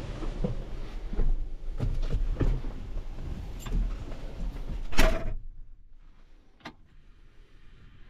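Wind noise and scattered clunks and knocks from someone climbing into a tractor cab, then the cab door shuts with a loud bang about five seconds in, cutting off the wind. A single click follows in the quiet, closed cab.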